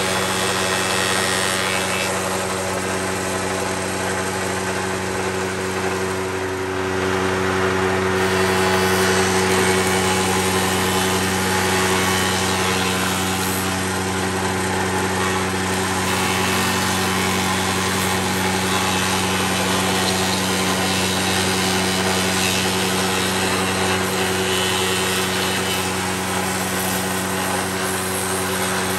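Bench-top spindle moulder running steadily, its motor and spinning cutter head giving a constant hum, while the cutter shapes the edge of a wooden board fed past it by hand; the rougher cutting noise swells and eases as the board moves through.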